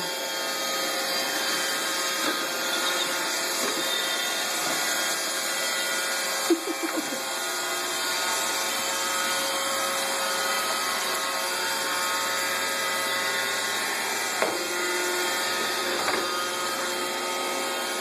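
Roomba robot vacuum running, a steady motor hum and whine from its vacuum and brushes, with a few brief knocks along the way.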